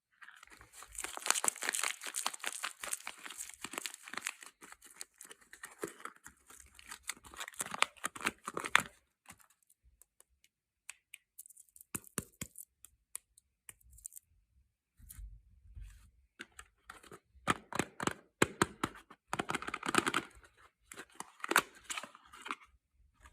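Soap packaging being torn and crinkled open by hand. There are two long stretches of crackling and rustling, with scattered small clicks and taps between them.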